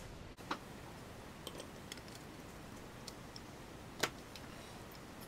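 Light clicks and taps from handling plastic model wagon parts on a workbench: a sharp click about half a second in, a few faint ticks, and a louder click about four seconds in as the wagon body is picked up.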